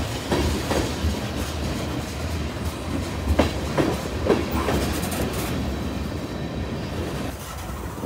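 Freight train of tank cars and covered hoppers passing close by: steel wheels clacking repeatedly over the rail joints as the trucks go by, over a steady low rumble. The clacks thin out and the sound drops a little near the end.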